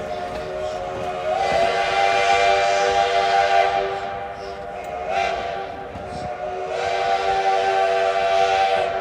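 Steam whistle of Black Hills Central Railroad #110, a mallet tank locomotive, sounding a multi-note chord in two long blasts of a few seconds each, with a hiss of steam over the loud parts.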